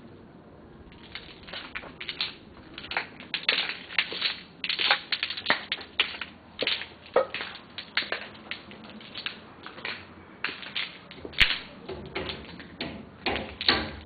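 A rapid, irregular run of sharp taps and knocks, about two to three a second, starting about a second in.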